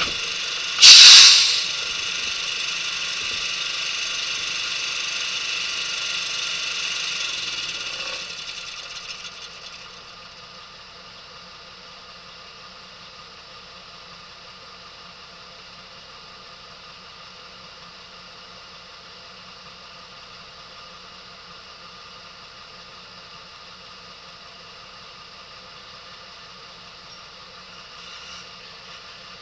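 Engines running: a loud steady engine sound with a short, very loud burst of noise about a second in. The engine winds down between about eight and ten seconds, leaving a quieter steady engine hum.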